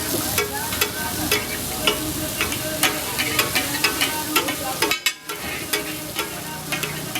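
Mutton tikka pieces frying and sizzling in a karahi, with a metal spatula clanking and scraping irregularly against the pan as it is stirred. The sound briefly drops out about five seconds in.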